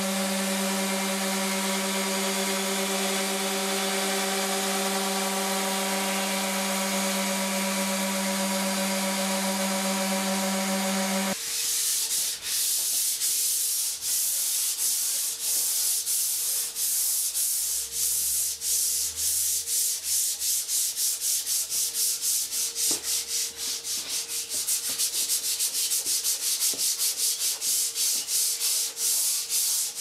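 An electric sander hooked to a dust-extraction hose runs steadily on Tasmanian oak, then cuts off abruptly about 11 seconds in. Hand sanding with a sanding block follows: rhythmic back-and-forth rubbing strokes on the wood, getting quicker toward the end.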